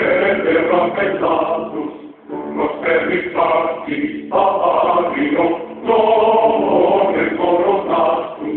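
Music with a choir of voices singing in phrases, broken by short pauses, over a steady low held note.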